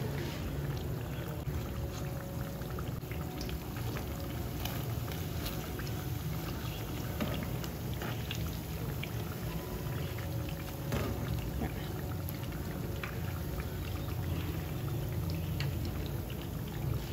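Akara bean fritters deep-frying in hot oil: a steady sizzle full of small crackles and pops, over a low steady hum.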